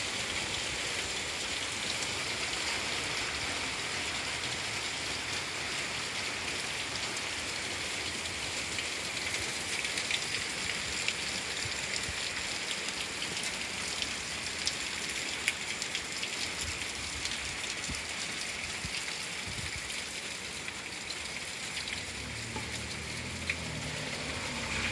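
Torrential rain falling steadily on an asphalt road and grass, a dense even hiss with a few sharper ticks of nearby drops. A low rumble comes in near the end.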